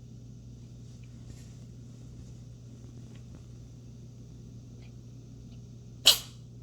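A cat sneezing once, a sudden sharp loud burst about six seconds in, the sign of a cat with a cold. Before it, only a faint steady low hum.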